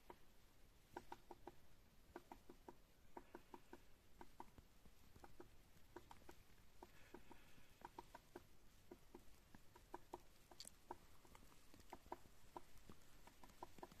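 Faint footsteps in frozen snow: short squeaky crunches that come in small clusters about every second as someone walks at a steady pace.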